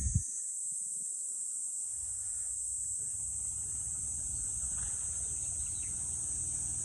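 A sharp crack right at the start, a 7-iron striking a golf ball, over steady high-pitched insect chirring.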